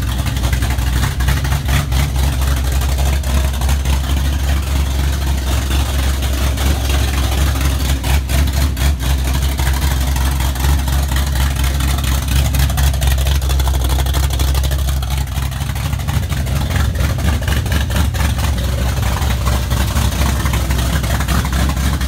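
1979 Camaro Z28's freshly rebuilt V8 engine running at a steady idle on its first startup after the rebuild.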